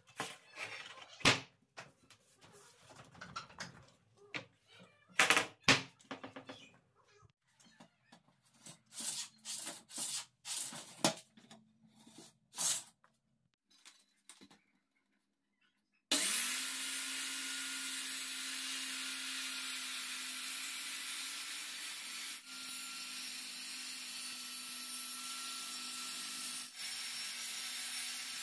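Boards and tools handled on a workbench, with a string of sharp knocks and clicks. After a short pause, about halfway through, an electric circular saw starts up and runs steadily.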